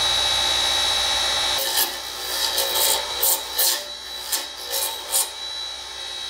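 Wood lathe motor running with a steady high whine as a spindle roughing gouge cuts a rainbow and pine cone pen blank. From about a second and a half in come a run of harsh, uneven scraping bites with chips flying, as the blank breaks apart on its tube.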